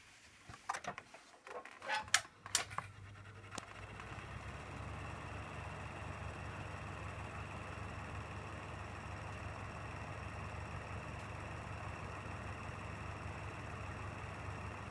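A few sharp clicks, then the 1995 Hitachi UL-20GS ventilation fan starts: a low motor hum and rushing air build over a couple of seconds to a steady run.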